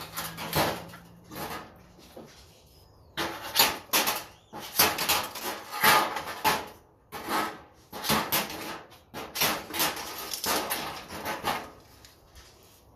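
Metal parts of a fluorescent light fixture being handled while it is dismantled for scrap: irregular clattering, scraping and clicking, sparse at first, busy from about three seconds in, dying down near the end.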